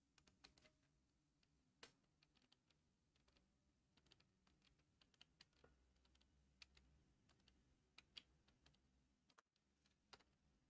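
Near silence: room tone with faint, scattered clicks at irregular intervals.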